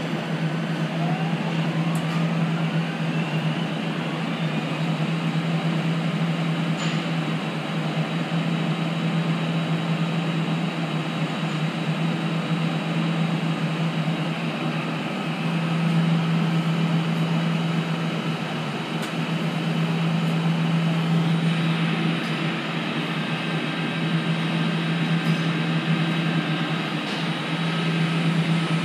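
A BN5-12 progressive cavity pump, driven by an electric motor on a variable-frequency drive, running in reverse while pumping thick, 4000 cSt HiTEC fluid. It makes a steady low hum with machine noise over it, and a faint motor whine rises in pitch over the first few seconds as the drive ramps up.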